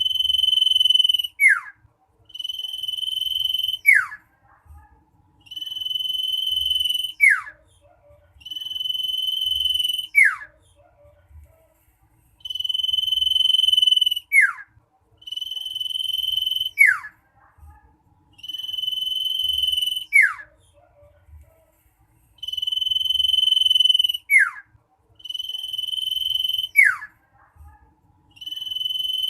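Common iora singing a shrill, insistent song. The same phrase repeats about every three seconds: one long, steady whistle lasting a second and a half, ending in a quick falling slur.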